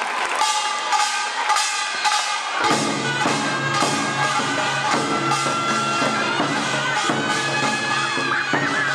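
Music with drums keeping a steady beat under a sustained, reedy melody line; deeper drum strokes come in about three seconds in.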